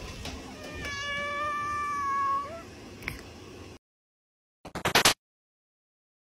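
Domestic cat giving one long, drawn-out yowl of about a second and a half, level in pitch and bending upward at the end. The sound then cuts off abruptly, and a brief cluster of loud clicks follows about a second later.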